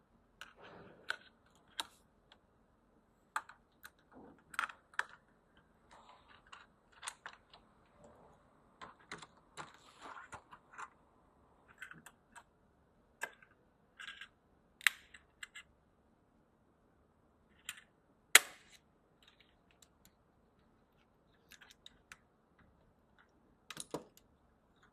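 Scattered small clicks and taps of a rear-camera lens remover tool being set up and worked against an iPhone 12 glass back, with one sharper, louder click a little past the middle.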